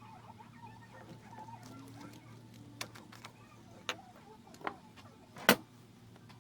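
A few sharp clicks and taps from handling, the loudest about five and a half seconds in, over a low steady hum.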